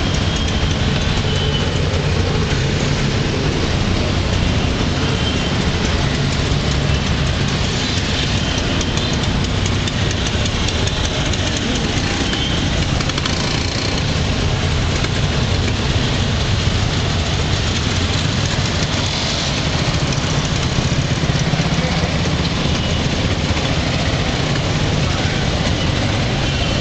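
Auto-rickshaw engine running steadily under a ride through busy street traffic, heard from inside the open-sided rickshaw. Now and then a short horn beep sounds from the surrounding traffic.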